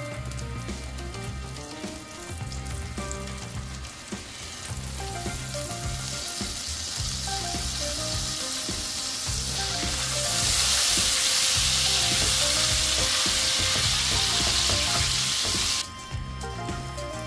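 Butter and oil in a hot frying pan sizzling, growing much louder as lemon juice is squeezed into the hot fat, then cutting off suddenly near the end.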